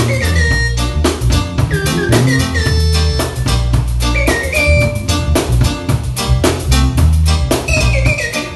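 Music with a drum kit playing a steady beat over a heavy bass line and short gliding melody notes.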